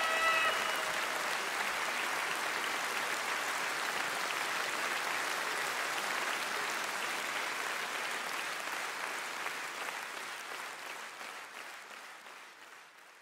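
Concert audience applauding, a dense steady clapping that fades out over the last few seconds.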